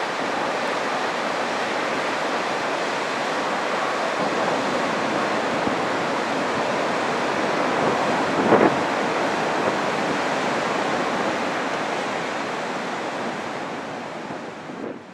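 Steady roar of the Great Falls of the Passaic River, water pouring over the falls, with one brief louder surge about eight and a half seconds in. The sound fades out near the end.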